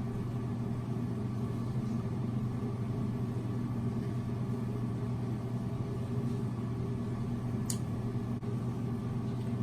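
A steady low hum with a few constant low tones, unchanging throughout, and a brief high hiss about eight seconds in.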